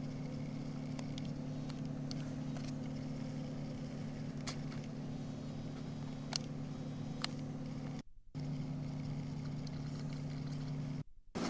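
A steady low hum with a few faint clicks, cutting out briefly twice near the end.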